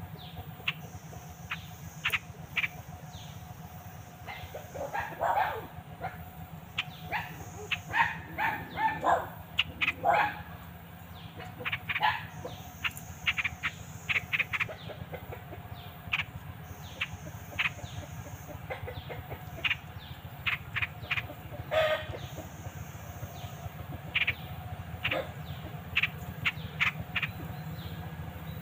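Birds calling: many short, sharp chirps and brief call phrases, irregular and busiest in the first half, over a steady low hum.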